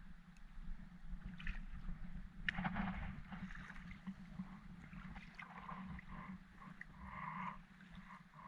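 Water lapping and gurgling against the hull of an anchored small boat, with a couple of light knocks and a steady low hum underneath.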